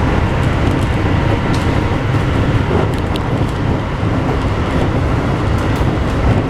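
Keikyu New 1000 series electric train running at speed: a steady rumble of wheels on rail heard inside the car, with a few faint clicks.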